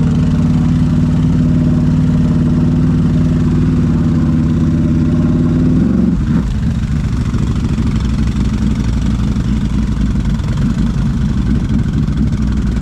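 ATV engine idling steadily; about six seconds in, the even hum breaks off into a rougher, choppier engine sound.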